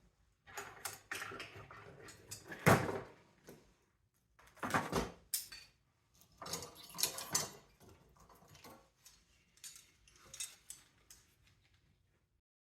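Irregular clanks, clicks and rattles of metal parts and tools being handled while a mini split air-conditioning unit is taken apart for scrap, with a louder knock about three seconds in and another about five seconds in.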